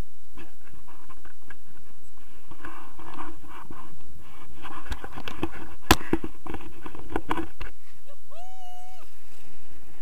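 Wind rushing over the camera microphone as a tandem paraglider launches, with rustling and clattering of harness straps, lines and canopy fabric and one sharp knock about six seconds in. Near the end a high-pitched voice gives a short cry.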